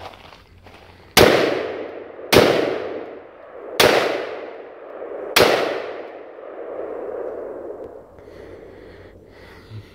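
Smith & Wesson M&P15 AR-style rifle fired four times, shot by shot about one to one and a half seconds apart, each sharp report followed by a long echo that dies away.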